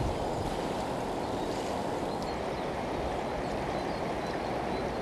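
Steady rushing of a fast-flowing river running high after rain, an even, unbroken water noise.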